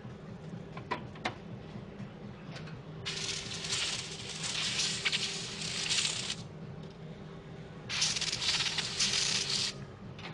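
Spray gun hissing with compressed air in two bursts, one of about three seconds and a shorter one of under two seconds, after two light clicks.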